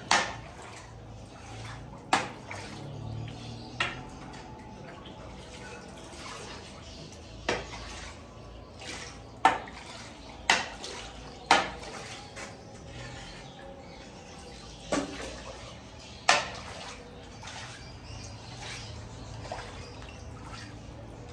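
Metal utensils and dishes clanking, with about nine sharp knocks spaced irregularly a second or a few seconds apart.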